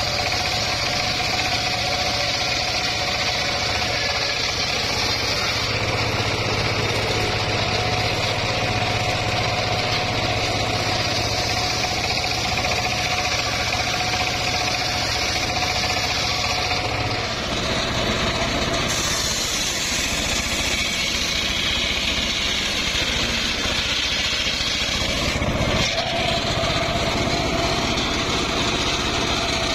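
Homemade circular saw bench running, its large blade ripping lengthwise through a mahogany log with a steady mechanical running sound. The sound changes abruptly a few times in the second half.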